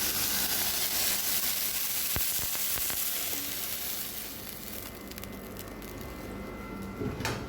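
Julienned chicken breast sizzling in olive oil in a frying pan, the sizzle dying down about four to five seconds in, with a click and then a knock near the end.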